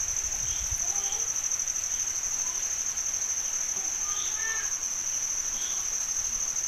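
Crickets trilling steadily in the background, a high, finely pulsing chirr with no break.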